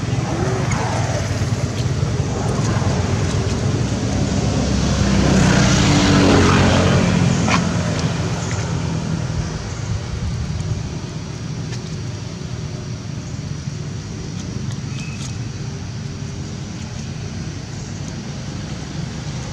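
Steady low rumble of outdoor traffic noise, swelling and fading about six seconds in as a motor vehicle passes.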